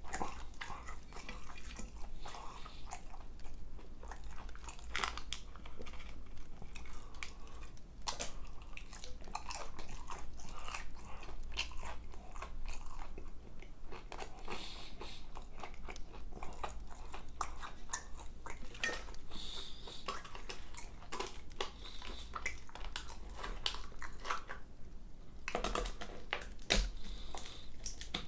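Close-miked crunchy chewing of fried chicken, the crispy breading crackling irregularly with each chew, with a few louder crunches near the end.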